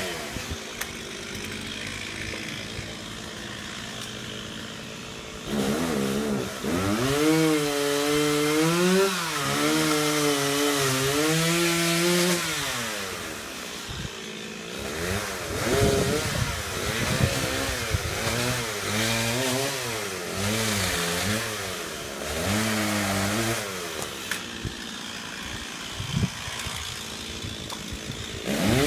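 Chainsaw idling at first, then running at high revs in two long stretches, its pitch rising and sagging, with lower idle spells between. It revs up again right at the end.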